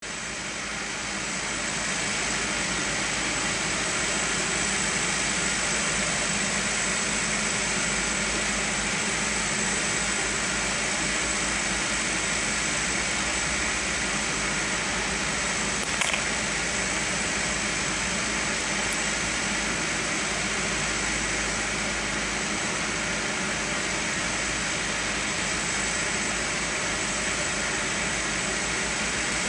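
Electric multiple unit standing at the platform, its auxiliary equipment (ventilation fans and converters) running with a steady hum and hiss under a thin high whine. A single brief click about halfway through.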